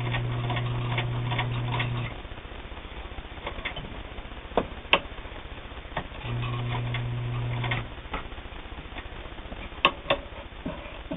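Bel Air Precision De Luxe sewing machine's 1.5 amp motor running in two short bursts as it stitches cotton sheeting: a steady hum for about two seconds at the start and again for about a second and a half after the middle. Scattered clicks and taps fall in between.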